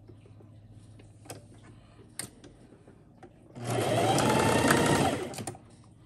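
Singer electric sewing machine stitching a short seam through folded fabric: one steady run of about a second and a half, starting about three and a half seconds in, with a whine that rises as it gets up to speed. A few faint clicks of the fabric being positioned come before it.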